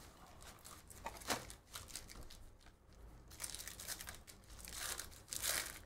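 Trading card box and pack wrapper being handled and torn open: crinkling and tearing, with a sharp crackle about a second in and a longer, louder stretch of tearing from about three and a half seconds.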